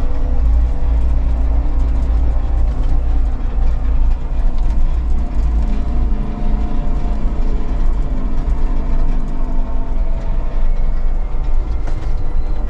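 Cab noise of a John Deere prototype battery-electric tractor driving slowly over a dirt track: a steady low rumble with a faint hum of several steady tones from the electric drive.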